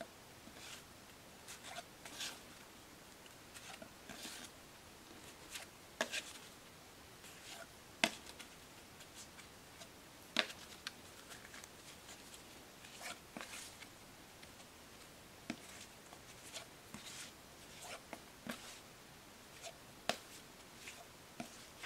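Thick cardboard hexagonal game tiles handled one at a time, giving faint irregular clicks and light scrapes as they slide against each other and are set onto the stack.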